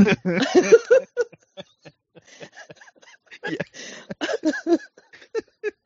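People laughing: a louder burst of laughter at the start, then quieter breathy chuckles, with another run of laughs about three and a half seconds in.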